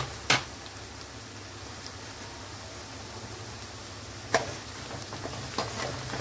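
Chopped onion and garlic sizzling steadily in hot oil in a steel kadhai, with a metal spatula scraping the pan once just after the start and several times in the last two seconds as the onions are stirred.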